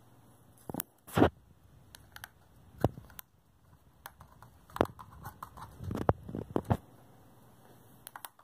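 A cockatiel pecking at and nudging cardboard toilet-paper tubes on a tabletop: irregular taps and knocks of beak and card. The loudest knock comes about a second in, and a quicker run of knocks and scuffs follows around six seconds in.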